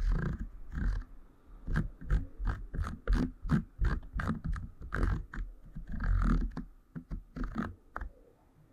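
Typing on an Akko PC75B Plus mechanical keyboard with factory-lubricated linear switches: an irregular run of key clacks, several a second, that stops shortly before the end.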